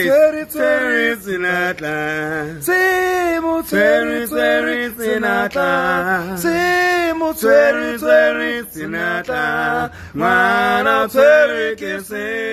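Two men singing a song together without accompaniment, in long held, slightly wavering notes.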